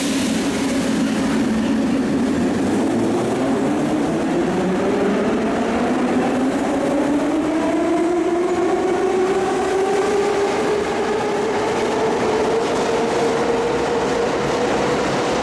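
Metro train pulling out of the station and accelerating: its traction motors give a whine that climbs steadily in pitch, over the running noise of wheels on rail.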